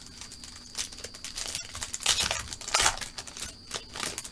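Plastic trading-card pack wrapper being crinkled and torn open by hand, in irregular crackling bursts that are loudest a couple of seconds in.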